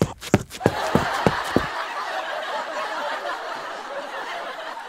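Hurried footsteps, about six thuds roughly a third of a second apart, stopping after about a second and a half, then a softer even rushing noise that slowly fades.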